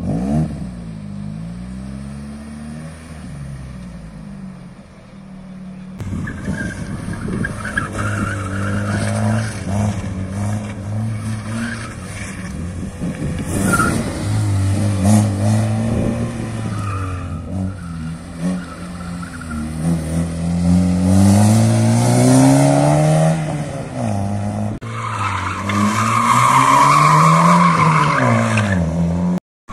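Competition car engines revving hard and lifting off through tight slalom turns, the pitch rising and falling over and over: a Ford Escort first, then from about six seconds a Citroën Saxo. The Saxo's tyres squeal in the turns, loudest in the last few seconds.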